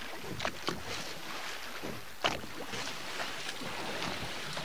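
Steady wind and sea noise aboard a boat, with a few light knocks, the loudest about two seconds in.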